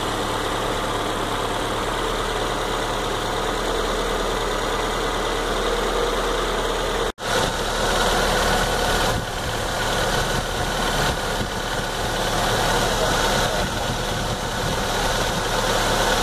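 Ford Zetec-E 1.8-litre 16-valve DOHC inline four-cylinder engine idling steadily, heard close up in the engine bay. The sound cuts out for an instant about seven seconds in, then carries on a little louder.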